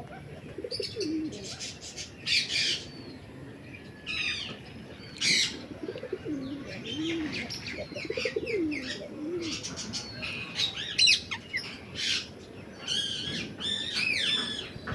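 Parrots in an aviary calling in a busy chorus of short, high chirps and squawks that overlap one another. Low, wavering cooing calls come in several times, near the start and again in the middle.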